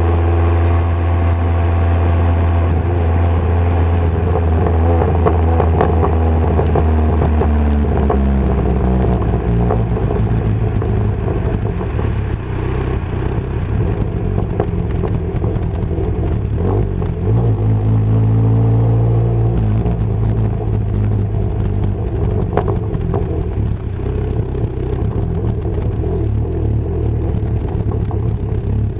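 MG Midget's swapped-in 2.0-litre Ford Zetec four-cylinder engine, heard from the open cockpit. It runs at high revs, and the pitch falls about eight seconds in as the car slows. It climbs and drops again briefly past the middle, then holds a lower, steady note.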